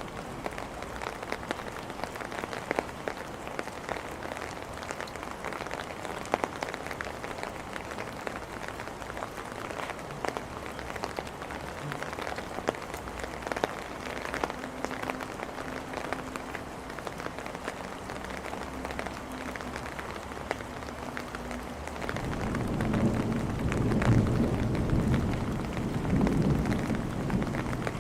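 Steady rain pattering on hard surfaces, with many individual drop ticks. About three-quarters of the way through, a low rumble of thunder builds and rolls on, loudest a couple of seconds after it starts.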